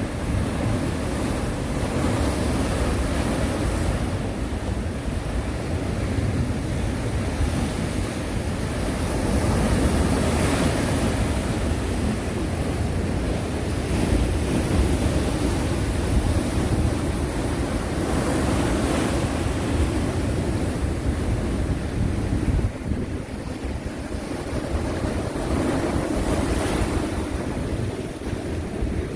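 Sea waves breaking on a shore, the surf swelling about every eight seconds over a continuous wash, with a steady low rumble of wind on the microphone.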